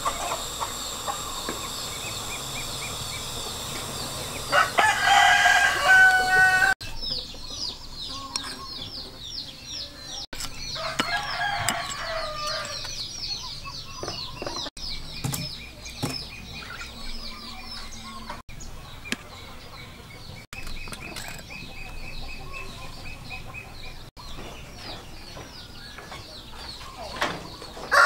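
A rooster crowing loudly about five seconds in, the call ending on a held note, and crowing again more faintly around eleven seconds in, over rapid high-pitched bird chirping.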